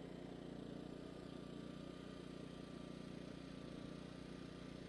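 Steady low engine drone with a faint high tone, even and unchanging throughout.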